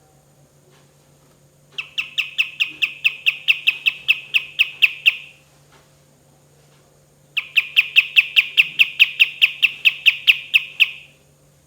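Kapas tembak bulbul singing its 'tembakan' volleys: two long runs of sharp, rapidly repeated whistled notes, about five a second, each run lasting around three and a half seconds with a pause between.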